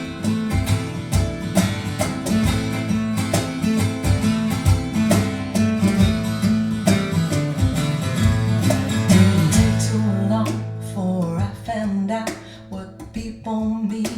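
Instrumental break of a blues-rock song played back through hi-fi loudspeakers and recorded by a room microphone: guitar and bass over a steady drum beat. About ten seconds in, the band thins out to sparse, sliding guitar lines.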